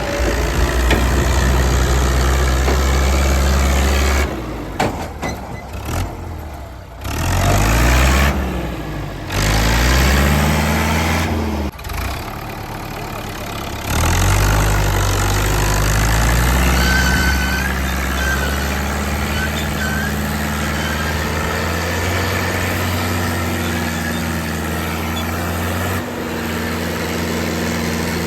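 Fiat 640 tractor's four-cylinder diesel engine running, revved up and down several times partway through, then settling into a steady run.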